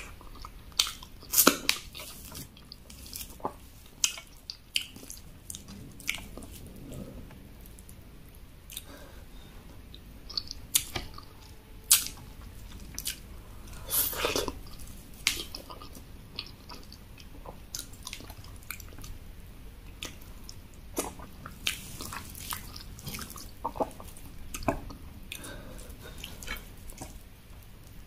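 Close-miked eating: wet chewing and lip smacks as a person eats soft eba (cassava garri) with egusi soup by hand, with irregular sharp clicks and squishy mouth sounds, busiest about a second in, around the middle and again near the end.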